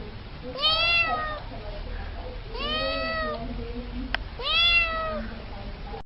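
A cat meowing three times, each long call rising then falling in pitch like a drawn-out 'yauh'. A single sharp click is heard between the second and third meows.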